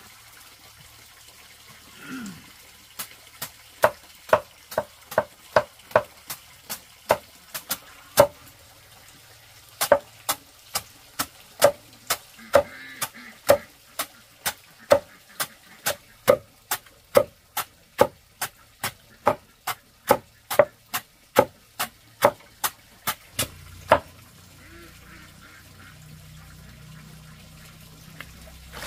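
A long, even series of sharp knocks, about two a second, with a short pause about eight seconds in; they stop a few seconds before the end.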